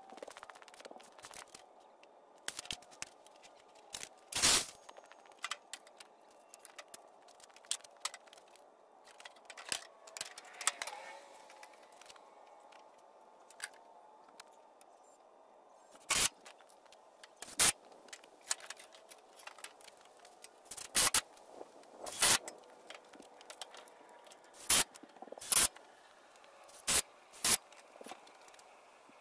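Wooden boards and thin slats being handled on a wooden trailer deck: scattered sharp knocks and clacks of wood set down and bumped together, with light scraping between them, the knocks coming more often in the second half.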